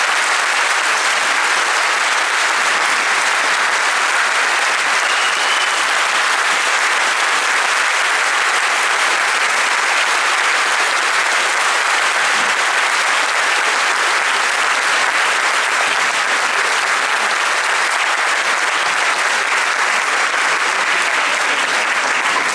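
A large audience applauding steadily, a long unbroken round of clapping in response to a speech.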